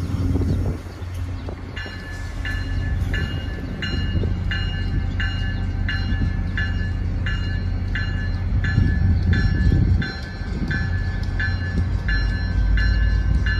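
Low rumble of an Amtrak passenger train with Amfleet coaches on the rails. From about two seconds in, a bell dings steadily, roughly three strokes every two seconds.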